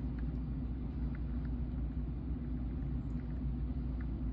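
Steady low background hum with a few faint small ticks from wire leads being handled and twisted together.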